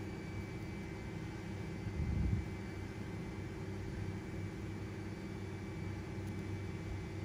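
Steady low background hum with a few constant tones running under it, and a soft low thump about two seconds in.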